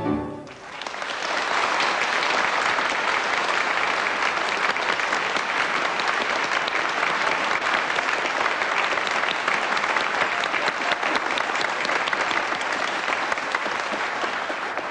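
Studio audience applauding, building up over the first second or two after the song's last note ends, then steady, easing slightly near the end.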